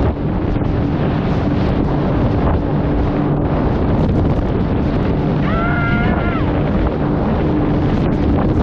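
Jet ski running at speed on the sea, its engine a steady hum under heavy wind buffeting on the microphone and water rush. A brief shout cuts through about halfway.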